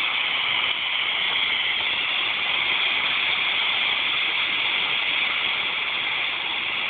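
Homemade smoke bomb in a small canister burning without flame, hissing steadily as it vents smoke.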